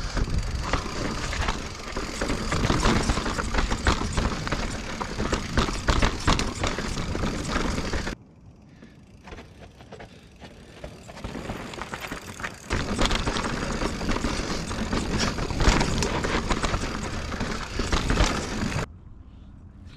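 Full-suspension mountain bike (2021 Giant Reign Advanced Pro 29) riding fast down rocky slickrock, heard from a camera on the rider. Wind rushes over the microphone while the tyres rumble over rock and the bike rattles and clacks over bumps. About eight seconds in it cuts to quieter trail sound of a bike rolling over rock, and the loud riding noise returns until a second sudden drop just before the end.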